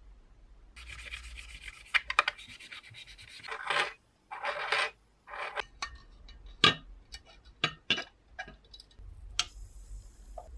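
Metal scraping and rubbing against a glass jar, then a series of sharp clicks and clinks, as wire hangers and a steel part are hooked over the rim and hung in the jar of solution.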